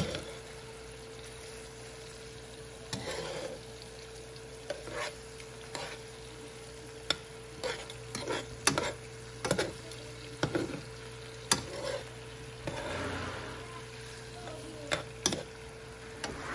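Seasoned chicken pieces frying in oil in a pan, a steady soft sizzle, broken by sharp clicks and scrapes of metal tongs against the pan and each other as the pieces are stirred and turned.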